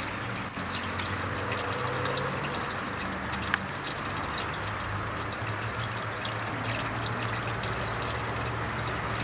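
Water splashing and trickling steadily in a garden koi pond, with a low steady hum underneath and a single sharp click about three and a half seconds in.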